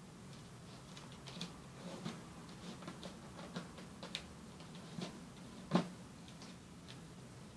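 Origami paper being handled and creased flat against a tabletop: a series of small, irregular paper ticks and taps, the loudest about six seconds in.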